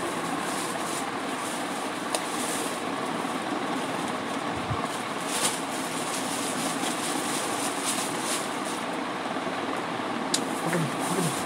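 Steady mechanical whir and hiss with a few faint clicks.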